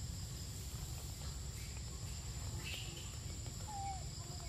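Forest ambience: a steady high-pitched drone of insects over a low rumble, with a faint short call near the end.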